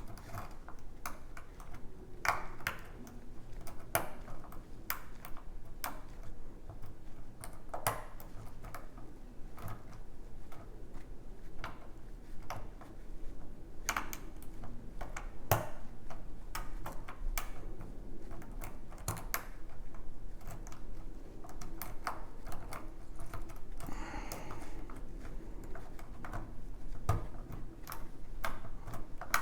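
Irregular small metallic clicks and light scrapes of a lock pick working the pin stacks of a six-pin kik lock cylinder under tension, a few ticks a second with pauses between.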